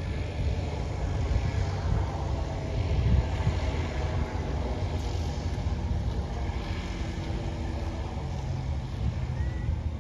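Steady low drone of a small single-engine propeller plane's piston engine running on the runway.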